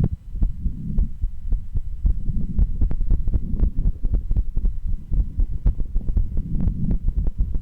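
Human heartbeat heard through a stethoscope on the chest: a quick run of low thumps, several a second, over a steady low rumble.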